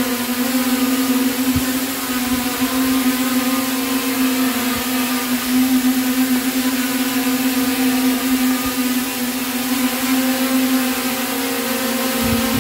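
Small quadcopter's motors and propellers hovering with a steady buzzing whine, its pitch wavering slightly and shifting a little near the end. The quad is holding its height on its own in surface mode, using a Matek lidar and optical-flow sensor.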